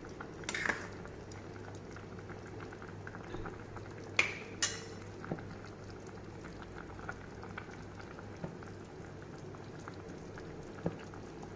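Chicken afritada stew simmering in a pot on the stove, bubbling steadily with many small pops. A few sharper clicks stand out about half a second in and again around four seconds in.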